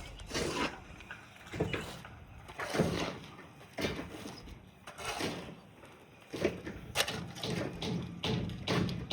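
Irregular knocks and thuds, roughly one a second, some sharper and some duller.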